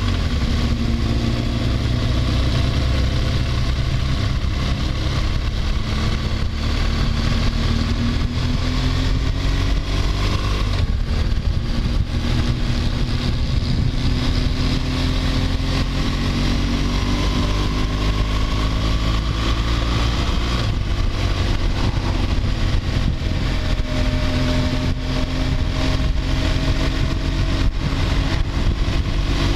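BMW R1200GS Adventure's flat-twin engine running under way on the road, its note climbing and dropping back about ten and twenty seconds in, under heavy wind rush on a helmet-mounted microphone.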